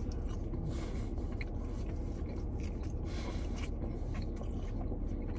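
A person chewing a mouthful of toasted sub sandwich, with scattered wet mouth clicks and smacks over a low steady hum.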